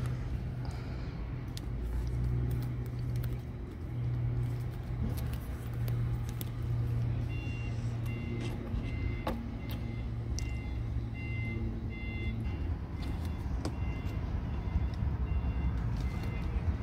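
A low, steady motor-vehicle engine rumble runs on, with scattered small clicks of steel pliers on a plastic drain fitting. Faint short beeps repeat for a few seconds in the middle.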